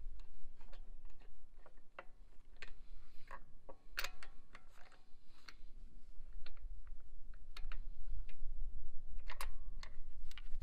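Irregular sharp clicks and taps, one to three a second with louder ones about four seconds in and near the end, over a steady low rumble.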